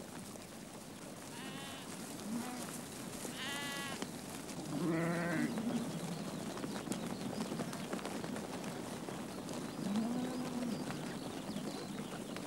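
A flock of sheep bleating, about five separate calls, some high and some low, the loudest about five seconds in, over a steady hiss.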